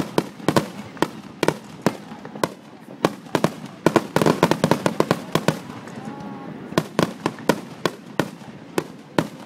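Fireworks going off in a rapid barrage of sharp bangs and crackles, several a second, easing off briefly about six seconds in before picking up again.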